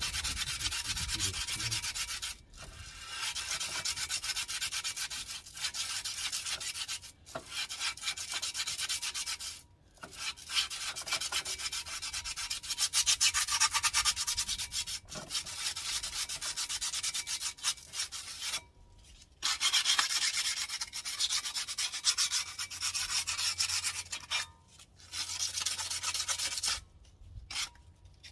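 Sandpaper rubbing hard against a Toyota Auris's front brake disc, in runs of several seconds with short pauses, taking off surface rust. The rust is what the mechanic suspects could be causing a brake squeak.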